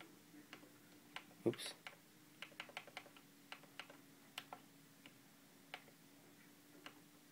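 Faint, irregular light clicks of a computer keyboard and mouse being worked while browsing a track list, over a faint steady hum.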